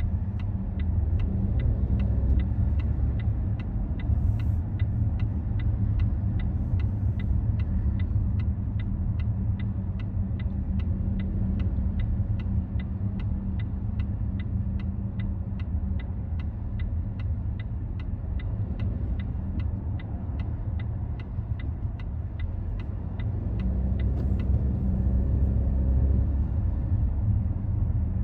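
A car driving on city roads: a steady low rumble of engine and tyres, a little louder about three-quarters of the way through. A regular ticking, about two ticks a second, runs alongside it.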